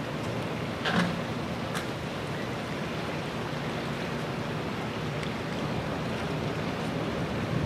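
Steady rushing background noise with a faint low hum, and two short clicks about one and two seconds in.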